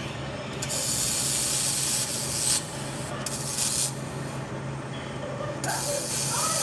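Electric arc welding: the arc crackles and hisses in three bursts, the first about two seconds long, the second under a second, the third over a second. A steady low electrical hum runs underneath.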